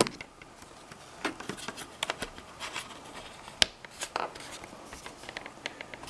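Scattered small clicks, taps and scrapes of a digital clock's LCD panel being laid back into its case and pressed down by hand onto adhesive pads, with the sharpest tap about three and a half seconds in.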